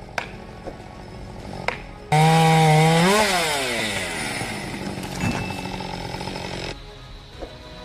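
Chainsaw running low with a few light ticks. About two seconds in, a much louder chainsaw engine note cuts in, holds, climbs briefly and then falls away over a couple of seconds. The sound cuts off abruptly near the end.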